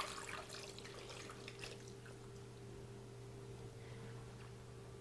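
Chicken stock trickling and dripping from a glass jug into a slow cooker of lamb knuckles as the pour tails off, faint and mostly in the first couple of seconds, over a low steady hum.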